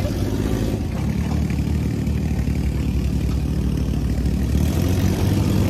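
Dune buggy engine running with a steady low hum.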